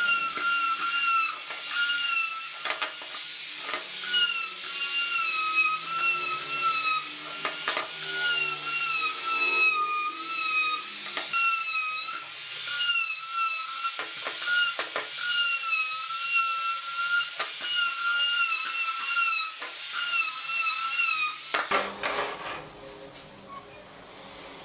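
Compact trim router running at a steady high whine, its pitch wavering slightly as the bit cuts along the edges of wooden parts, with repeated short rasping bursts as it bites into the wood. The whine stops abruptly near the end.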